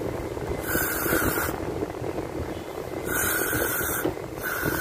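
Aerosol throttle cleaner sprayed through its straw onto a throttle body in three short hissing bursts, each about a second long, the last starting near the end.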